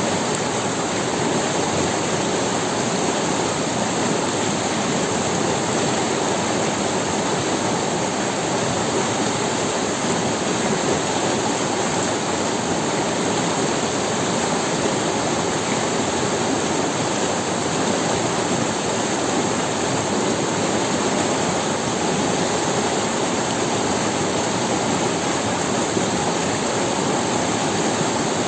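Forest river running over stones: a steady, even rush of flowing water.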